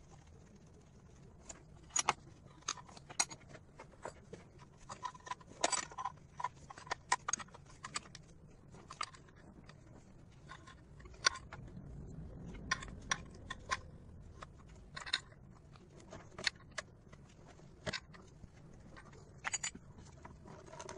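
Irregular sharp clicks, light metallic taps and scrapes as a gloved hand works the hoses, clips and electrical connector around an engine's EGR valve.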